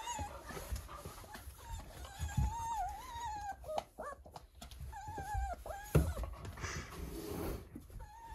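Young canid whining: several long, high-pitched, wavering whines and a few short squeaks, with some soft low thumps.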